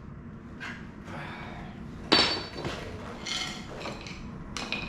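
Metal tools being handled and knocking together, with one sharp metallic clank about two seconds in that rings briefly.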